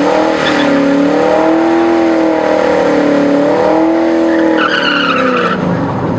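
A 2006 Pontiac GTO's 6.0-litre LS2 V8, fitted with headers, held at high revs through a burnout, its exhaust note wavering up and down as the rear tyres spin and squeal. The revs drop away near the end.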